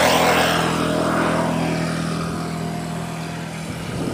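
Diesel locomotive of an approaching passenger train: its engine gives a steady low drone, with a broader rumble that is loudest at the start and slowly dies down.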